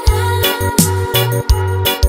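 Reggae remix music with heavy bass and a steady beat.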